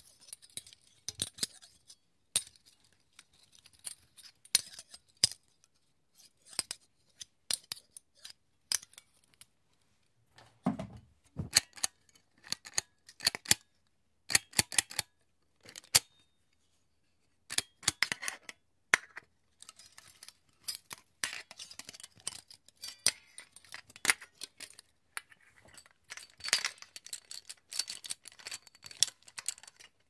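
Iron pieces being moved about: irregular sharp metallic clinks and scrapes, with one heavier knock about ten seconds in and a short pause a little past the middle.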